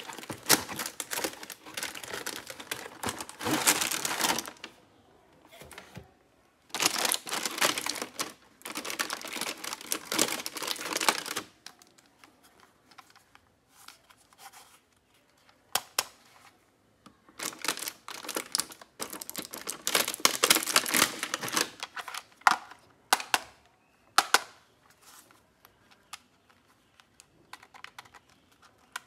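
Unboxing handling noise: a toy walkie-talkie set's cardboard box and plastic packaging rustling and scraping in three long stretches, with scattered sharp plastic clicks and taps as the walkie-talkies are handled.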